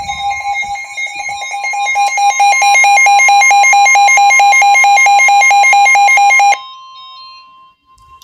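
Weather radio alarm on a severe thunderstorm warning: a rapid pulsing beep that gets louder over the first two seconds and cuts off suddenly about six and a half seconds in. Under it runs the broadcast's steady warning alarm tone, which carries on faintly for another second or so.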